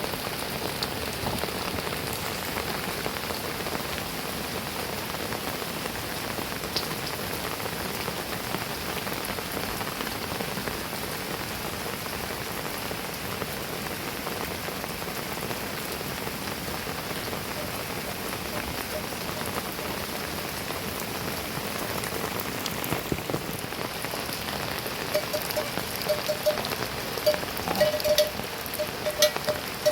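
Steady heavy rain falling. Near the end, louder single drops hit close by, and a short note repeats several times.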